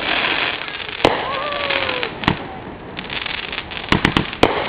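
Aerial fireworks going off: sharp bangs about a second in and again just past two seconds, then a quick run of four near the end, over a continuous crackle.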